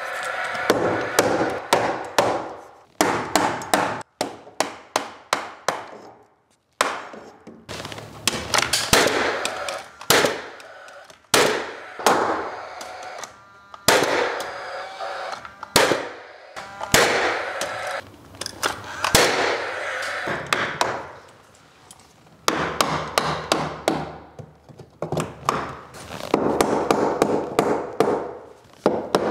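Paslode framing nailer driving nails into a wooden window header, sharp shots fired in quick runs of several at a time, dozens in all, each with a brief ringing tail.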